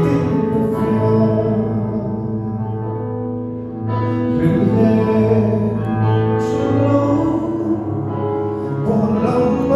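Two men singing a song over instrumental accompaniment, amplified for a live sound check.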